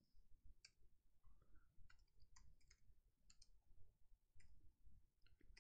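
Faint computer keyboard keystrokes: about a dozen separate, unhurried clicks at an irregular pace.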